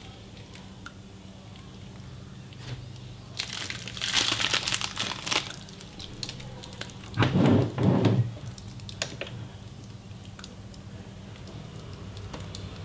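Plastic wrapping crinkling as the monitor's bagged stand is handled: a dense run of crackles a few seconds in, then a louder, lower handling noise about seven seconds in that lasts about a second.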